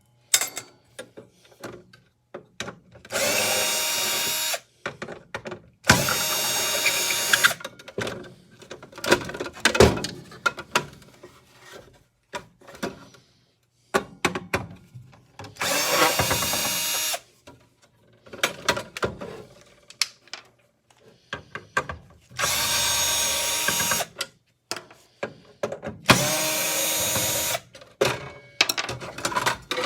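Power drill running in five short bursts of a second or so each, unscrewing fasteners to take the miter saw apart, with clicks and knocks of parts being handled between the bursts.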